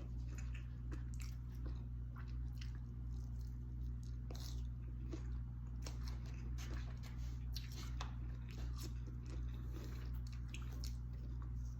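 Close-up chewing of a mouthful of fried goat (tasso kabrit), with irregular soft crunches and wet mouth clicks. A steady low hum runs underneath.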